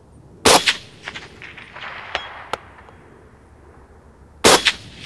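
Two suppressed shots from a Springfield M1A Loaded semi-automatic rifle in .308 Winchester with an AAC SDN-6 suppressor, about four seconds apart, each a sharp crack followed by echo. A faint ring from the steel target downrange comes about two seconds in, after the first shot.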